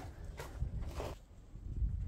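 Hand work on a block wall laid in mud mortar: two short scrapes about half a second and a second in, over low thuds.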